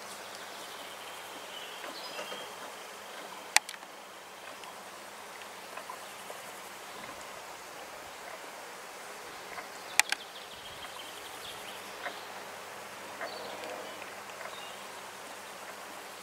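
Insects buzzing over a sunny field, a steady faint buzz with thin high tones that come and go. Two sharp clicks, about three and a half seconds and ten seconds in, are the loudest sounds.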